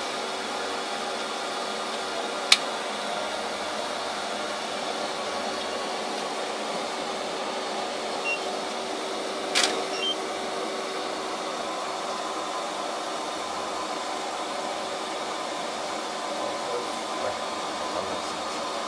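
Steady machine hiss with a constant low hum inside a small submersible's cabin, typical of its ventilation and drive running. Sharp clicks come about two and a half seconds in and again near the middle.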